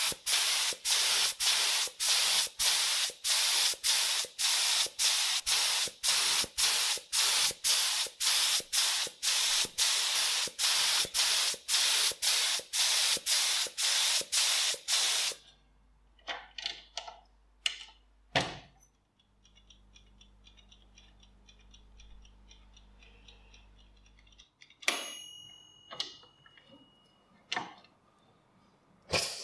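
Aerosol spray can hissing in short, even bursts, about two a second, as a metal gun part is coated. The spraying stops about halfway through and is followed by scattered clicks and knocks and a brief high beep.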